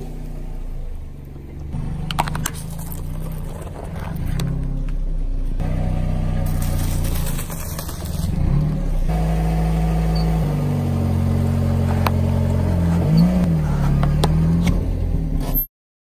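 Car engine running at low speed as the car rolls slowly, its note shifting a few times, with a few sharp clicks and cracks from things crushed under the tyres. The sound cuts off suddenly near the end.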